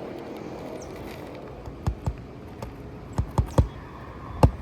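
A hammer knocking on a shingled roof in short groups: two strikes about two seconds in, three quick ones a second later, and another near the end.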